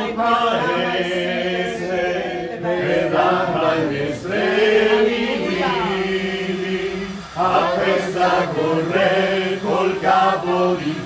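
A small congregation of mixed voices singing a hymn together in Italian, with long held notes.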